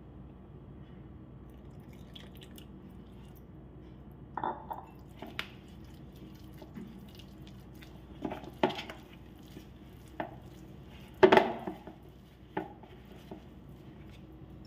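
Metal wire whisk knocking and scraping against a plastic mixing bowl as liquid is stirred into flour for cake batter. There are about eight irregular clinks and knocks, the loudest a little past the middle.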